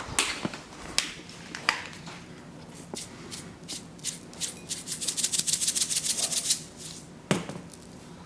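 Sesame seeds being shaken from their container onto noodles: scattered clicks, then a quick rattling shake of about nine strokes a second for nearly two seconds midway. A single sharp click follows near the end.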